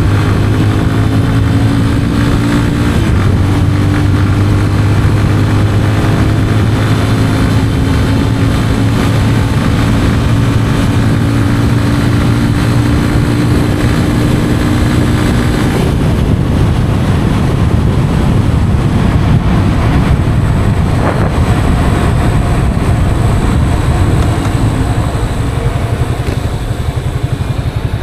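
Yamaha FZ 25's 249cc single-cylinder engine through its stock exhaust, riding at a steady throttle with an even note for about the first half. About halfway through, the note turns rougher and less even, and it is a little quieter near the end.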